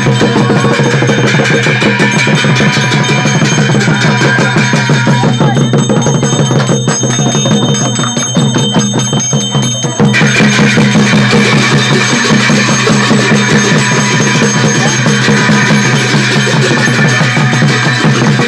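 Music with drums and percussion keeping a steady rhythm; it thins and softens for a few seconds in the middle and comes back in full about ten seconds in.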